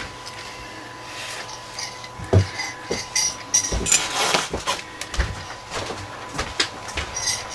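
Märklin E63 model locomotive chassis and its small metal parts handled and taken apart on a workbench: irregular light clicks and taps, with a brief scraping about four seconds in.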